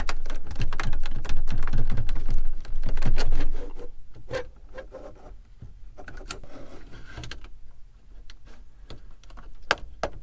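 Bent coat-hanger wires clicking and scraping in the release holes of a factory Ford truck radio, then the radio's metal case scraping as it is worked out of the dash. The first few seconds are loudest, with a low rumble under the clicks, and a sharp click comes near the end.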